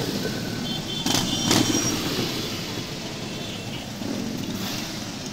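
A procession of many motorcycles rolling past at low speed, their engines running together as a continuous rumble. There are two louder bursts about a second in, the first with a high steady tone.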